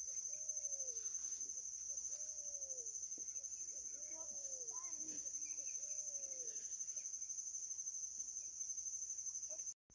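Steady high-pitched insect trill from the riverbank vegetation, with a faint bird calling four times over the first seven seconds, each a short note that rises and then falls.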